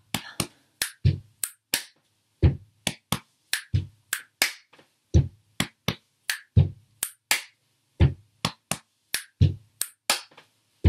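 Body percussion repeated in a steady rhythm: a foot stomp and a hand slap on the chest give low thumps, followed by finger snaps and a hand clap. The cycle repeats about every second and a half.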